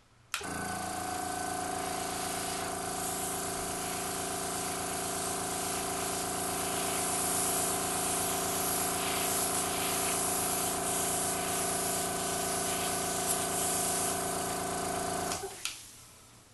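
Airbrush spraying black food colour through a cake stencil: a steady hiss of air with a steady motor hum under it, starting sharply and stopping about a second before the end.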